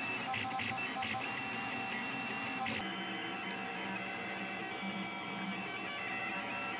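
SeeMeCNC Orion delta 3D printer printing, its stepper motors whining in steady tones that shift in pitch as the print head moves. The sound changes abruptly a little under three seconds in.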